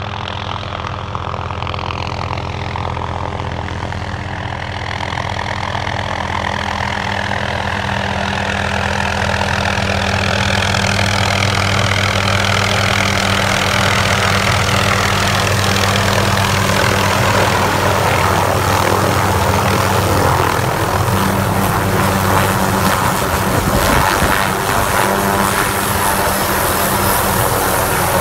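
MD 500-series turbine helicopter approaching and landing: the rotor and turbine grow louder over the first ten seconds as it comes in and descends, then hold at a steady loud level while it hovers and settles onto its skids.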